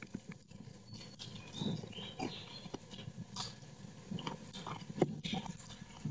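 Close-miked chewing of a mouthful of sweet-and-sour stir-fried snake, with irregular wet smacks and small clicks.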